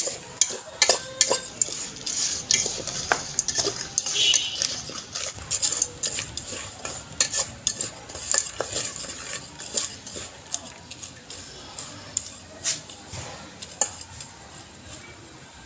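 Metal spoon stirring unpopped popcorn kernels coated in a red paste around a steel pot, scraping and clinking against the pot in quick irregular strokes that thin out toward the end.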